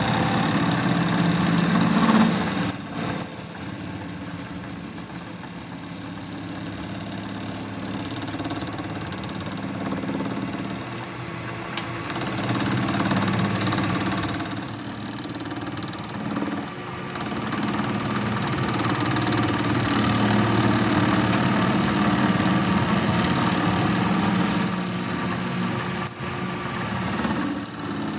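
A motor running continuously, its loudness swelling and dropping every few seconds as if under changing load, with a short sharp click near the end.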